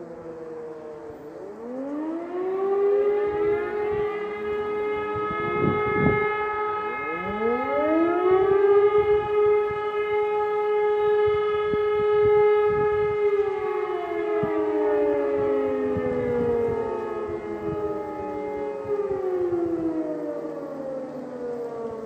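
Several electromechanical civil-defence sirens wind up one after another, rising in pitch, and then sound a steady tone together. About two-thirds of the way through they wind down with falling pitch, one set falling later than the other. This is a public siren test alarm.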